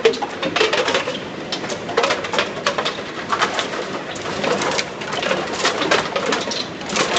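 PET plastic bottles crackling and popping in a vertical baler, a dense run of irregular crackles.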